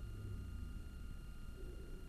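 Faint low background rumble with a thin steady hum, and no distinct event.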